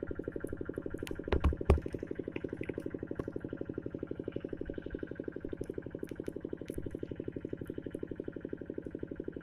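A small engine running steadily with fast, even pulses, and two sharp knocks close together about a second and a half in.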